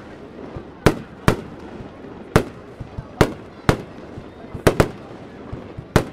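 Aerial firework shells bursting overhead: about eight sharp bangs at uneven intervals, several coming in quick pairs, each trailing off briefly.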